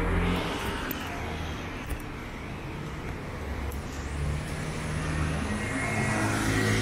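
Street traffic: motor vehicle engines running close by, one fading away over the first couple of seconds and another growing louder from about four seconds in.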